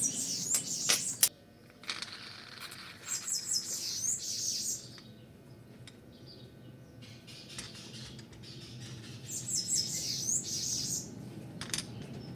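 Small birds chirping in three short spells of quick, high-pitched calls, with a few sharp clicks near the start and again near the end.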